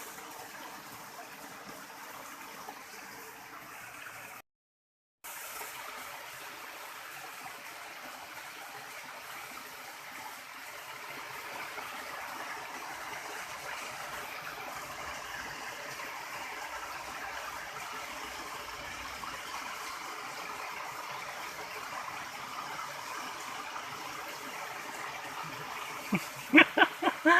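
River water flowing and gurgling steadily. The sound cuts out briefly about four seconds in, and a few sharp clicks come near the end.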